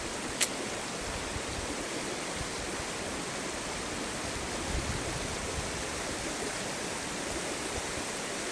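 Steady rushing of flowing river water, with one sharp click about half a second in.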